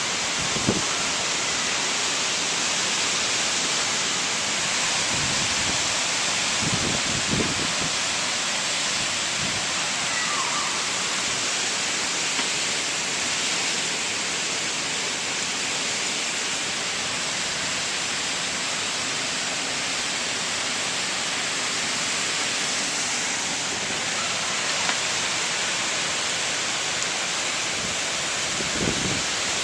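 Heavy storm rain with strong wind, a dense, steady hiss, broken by a few brief low thumps.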